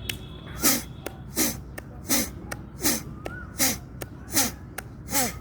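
Seven sharp, forceful exhalations blown out through the nose, kapalbhati-style, about three every two seconds, each with a short falling grunt. They are being done to blow leftover rinse water out of the nostrils after jal neti.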